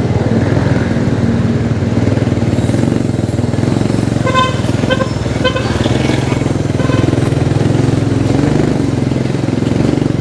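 Motor vehicle engine running steadily while on the move in traffic, with a horn giving several short toots about four to six seconds in.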